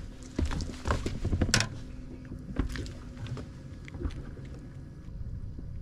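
Quick clicks and knocks, thickest in the first second and a half with a few single knocks later, as a freshly caught bass flops and the lure rattles while the fish is swung aboard and handled, over a steady low rumble.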